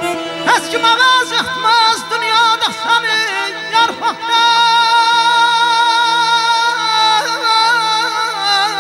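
A man sings a melismatic line without clear words into a microphone, with quick ornamental turns, then holds one long wavering high note from about four seconds in. A steady instrumental drone sounds underneath.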